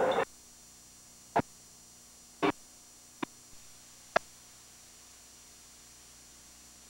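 Steady electrical hum, broken by four short sharp knocks about a second apart; a louder sound cuts off just at the start.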